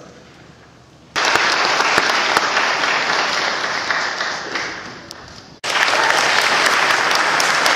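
Audience applauding, breaking out about a second in. The applause is cut by a sudden brief gap a little over halfway, then carries on.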